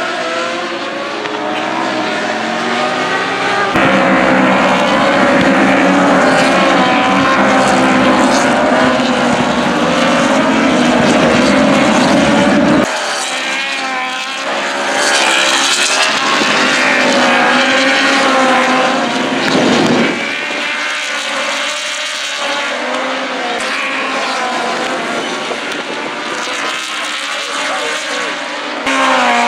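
Superbike racing motorcycles passing at speed in a pack, engines revving high with the pitch rising and falling as they go by and shift gear. The sound jumps abruptly a few times, about 4, 13 and 20 seconds in.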